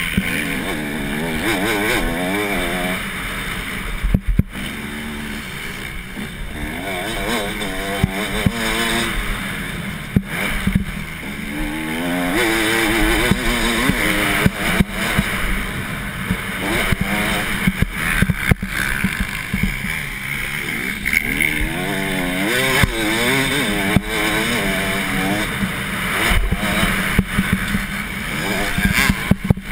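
Motocross bike engine revving hard, its pitch climbing and falling over and over as the rider works the throttle and gears around the dirt track. It is heard close up from a helmet-mounted camera, with a sharp momentary drop about four seconds in.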